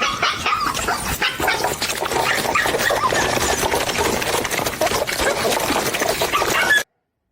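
A dog's vocal sounds over a busy, noisy clatter, cutting off abruptly near the end.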